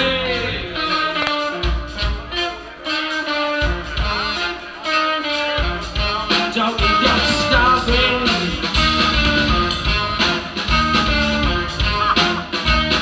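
Live band playing, guitar to the fore over bass, with a steady beat.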